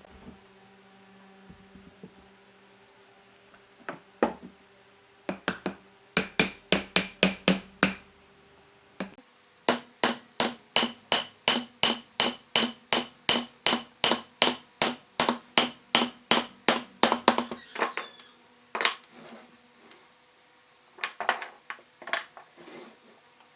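A hammer striking repeatedly in woodworking: a few short flurries, then a long steady run of about three blows a second, each with a slight ring, tapering into scattered blows near the end.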